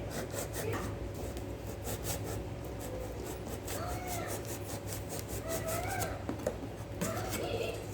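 A cat meowing about three times, short calls that rise and fall, over quick crackling and clicking.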